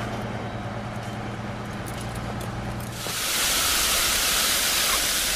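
Water jetting with a loud, steady hiss from the one outlet left open on a three-way hose dividing breeching as the line is charged, letting the air out of the hose; it starts about three seconds in. Before it, a steady low hum.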